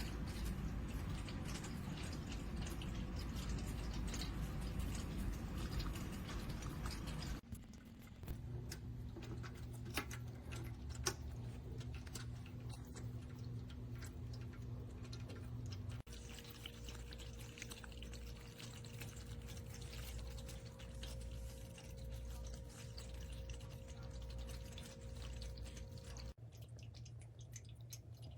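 Stainless steel dog water fountain running: water trickling and dripping over a steady electric pump hum, with occasional clicks. The sound changes abruptly three times as different short takes follow one another.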